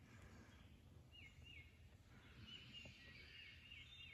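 Faint bird song: two short down-slurred whistled notes about a second in, then a quick run of about five similar notes past the middle, over near silence.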